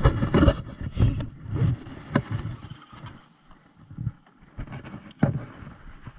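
Wind buffeting the microphone in irregular low rumbles, with a few sharp knocks, the loudest near the start and about five seconds in.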